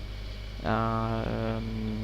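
A man's drawn-out, flat-pitched 'uhh' of hesitation starting just past half a second in, over a steady low electrical hum.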